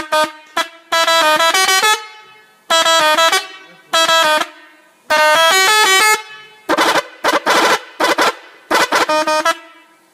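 Telolet musical air horn sounding a string of short bursts, each a quick stepped tune of a few notes rising and falling, with brief pauses between bursts.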